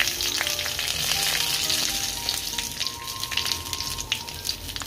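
Dried red chillies and sliced coconut sizzling in hot oil in a pot, a steady frying hiss with scattered small crackles.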